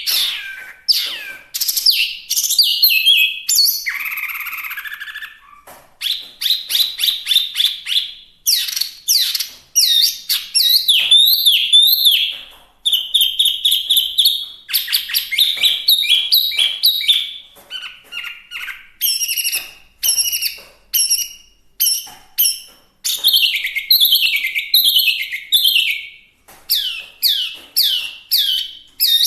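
Chinese hwamei (melodious laughingthrush) singing: a loud, varied song of rapidly repeated whistled notes, about five or six a second, in phrases that change every few seconds, with one harsher, longer note about four seconds in.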